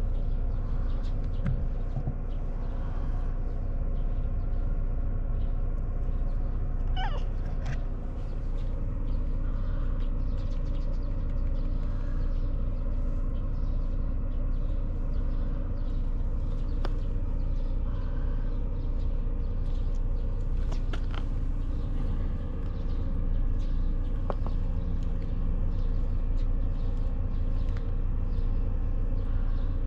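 Cat sounds while being stroked: a short call sweeping up in pitch about seven seconds in, over a steady low rumble.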